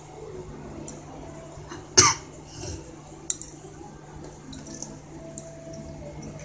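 Small clicks and taps of hands working on a stone countertop as a rolled, paste-filled arbi leaf is bound with thread, over a steady low hum. About two seconds in comes one short, loud sound that falls in pitch.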